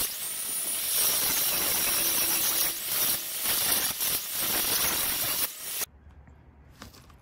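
Angle grinder with a 40-grit flap disc grinding weld filler flush on a drill press table: a steady, high hiss of abrasive on metal, with a few brief dips as the disc lifts and bites again. It cuts off abruptly near the end, leaving only a faint low hum.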